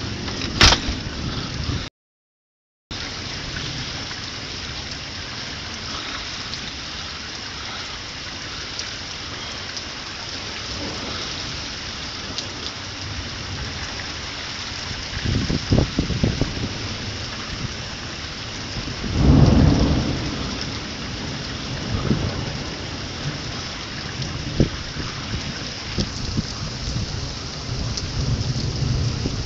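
Steady rain falling during a thunderstorm, with two low rumbles of thunder a little past halfway through, a few seconds apart. The sound cuts out completely for about a second near the start.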